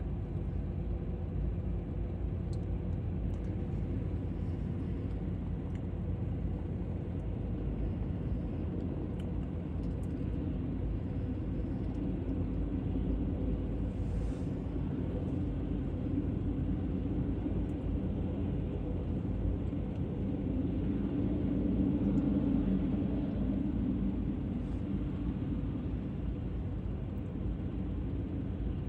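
Jet engines of a taxiing Emirates Boeing 777: a steady low rumble that swells a little about two-thirds of the way through.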